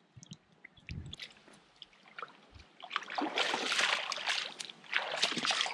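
Splashing of feet wading through shallow seawater, in two spells about three and five seconds in. Before that, only faint small clicks and a knock while a plastic bottle sits submerged, filling with seawater.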